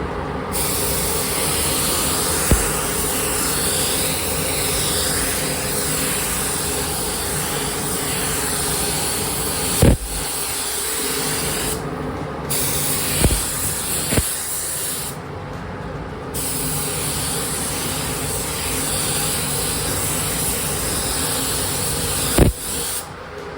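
Compressed-air paint spray gun hissing steadily as a coat is sprayed onto motorcycle bodywork, the spray cutting off briefly a few times between passes. A few short sharp knocks stand out above the hiss.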